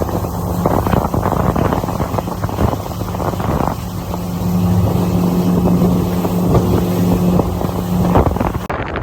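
Boat motor running steadily at speed, with water rush and wind buffeting the microphone.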